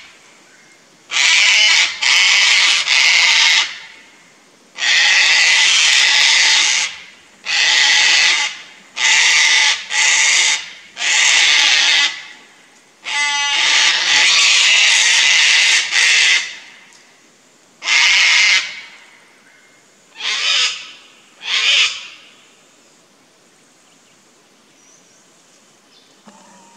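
A pair of sulphur-crested cockatoos giving loud, harsh screeches over and over, about a dozen in all, with a brief rattling call about halfway through and the last two fainter. These are alarm and mobbing calls at a lace monitor near their nest.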